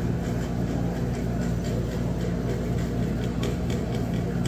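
A motor running with a steady low hum, unchanging throughout.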